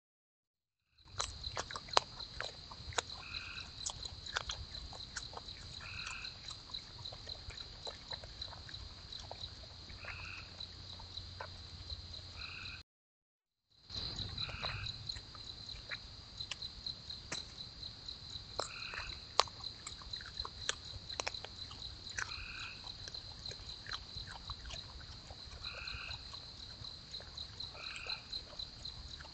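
Night insects trilling steadily in a high, fast-pulsing buzz, with a frog giving short calls every few seconds and scattered sharp clicks over a low rumble. The sound drops out for about a second midway.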